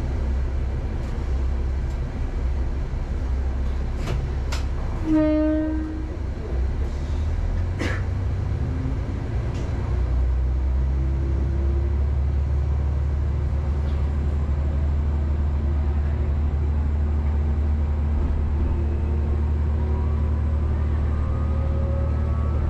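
Diesel railcar running with a steady low engine hum and a few sharp clicks from the rails. About five seconds in, a short blast of the train horn is the loudest sound. From about ten seconds in the engine gets louder, and near the end its note rises steadily as the train picks up speed.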